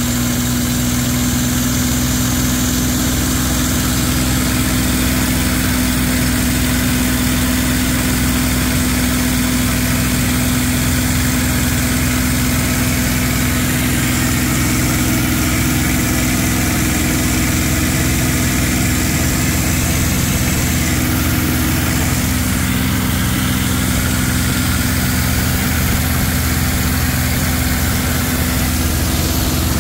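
Engine and propeller of a small aircraft in flight, heard inside the cockpit: a steady, loud drone with rushing air over it, the tone shifting slightly a few times.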